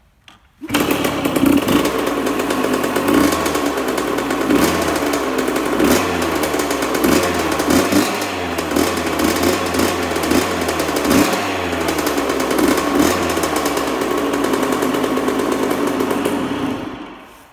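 1980 Kawasaki KX80-B2's 80 cc two-stroke engine running, with the throttle blipped again and again so the revs rise and fall. It starts suddenly just under a second in and dies away near the end.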